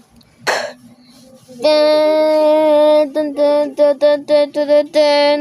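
A short noisy burst, then a synthetic, voice-like jingle: one long held note, a quick run of about eight short notes, and another held note.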